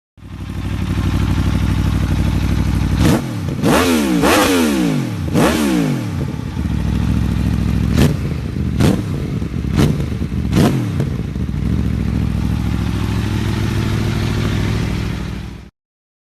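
Aprilia sport motorcycle engine with an Akrapovič exhaust, revved while standing. It idles, then is given four quick revs that rise and fall, then four short throttle blips, and settles back to idle before the sound cuts off near the end.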